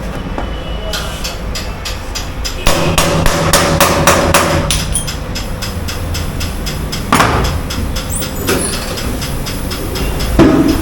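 A rapid run of sharp metallic knocks from tyre-fitting tools at work on a car wheel, loudest about three seconds in, with single harder bangs near the middle and at the end, over a steady low machinery hum.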